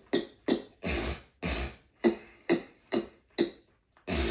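A person sniffling hard through the nose, over and over in a quick, rhythmic series of about nine sharp sniffs, some of them drawn out longer. These are allergy sniffles, which she puts down to her allergies flaring up.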